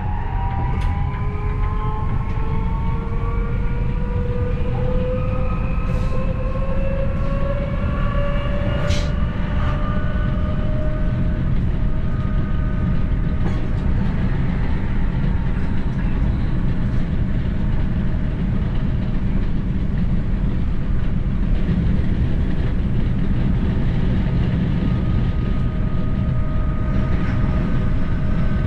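ABe 4/12 'Saphir' electric railcar running along the track: the traction motors' whine rises in pitch for about the first ten seconds as the train gathers speed, then holds steady over a constant rumble of wheels on rails. A few sharp clicks come from the track, the strongest about nine seconds in.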